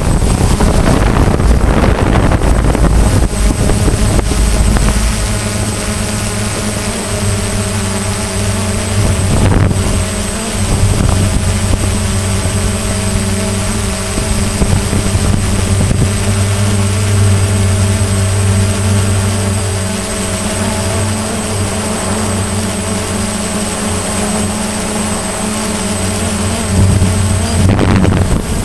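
DJI Phantom quadcopter's motors and propellers running with a steady buzzing hum, heard from the drone itself, with wind rumbling on the microphone in the first few seconds.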